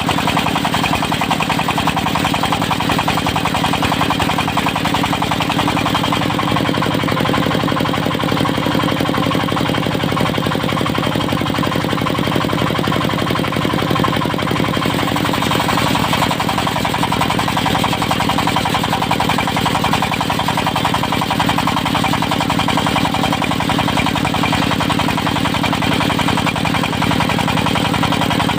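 Engine of a portable circular-saw sawmill running steadily at an even speed, with a fast, regular pulsing.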